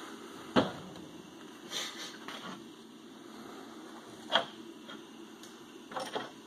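A few separate knocks and clicks of tools and metal parts being handled on a table, the loudest about half a second in and another about four and a half seconds in, over a faint steady background.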